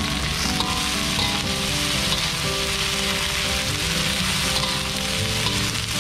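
Durian flowers stir-frying in a hot wok, sizzling steadily while a metal spatula tosses them over.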